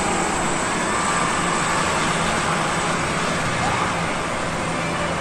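Steady roadside traffic noise: vehicle engines and tyres running past, with no horn sounding.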